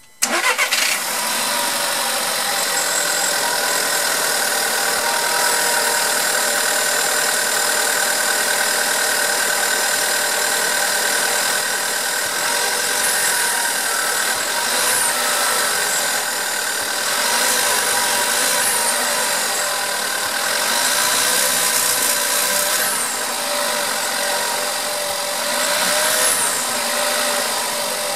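Volkswagen Golf 6 1.4 TSI petrol engine starting, catching within the first second, then idling with a steady high whistle and a rattle. The owner says it whistles and rattles after every start, which the dealer calls normal.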